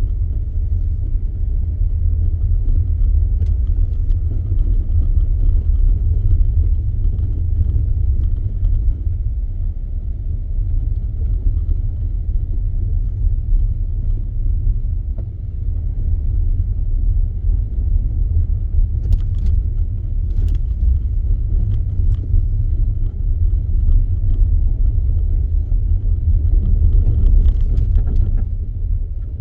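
Car driving on a snowy road, heard as a steady low rumble of road and engine noise.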